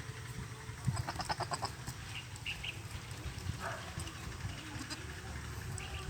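Goat bleating: a short quavering call about a second in, and a briefer one near four seconds.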